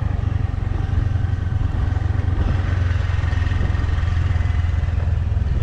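Small motor scooter's engine running steadily as it rides along a road, heard from the pillion seat with a heavy low rumble of wind on the microphone.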